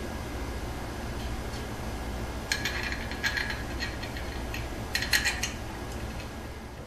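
Light metallic clicking and clinking in two short bursts, about two and a half and five seconds in, as the small bolts holding an oil heater tube to the centrifuge's steel leg are tightened. A steady low hum runs underneath.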